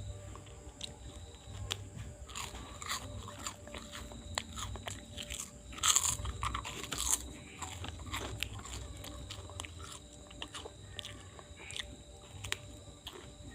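Hands working on a person during a traditional massage: scattered crunchy clicks and crackles throughout, with a louder crackling burst about six seconds in and another shortly after.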